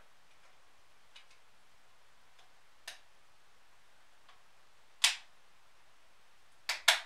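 Small sharp plastic clicks as a radio mounting bracket is worked onto a dash kit and its tabs snap and lock into place: a few faint ticks, a louder click about five seconds in, and two quick clicks near the end.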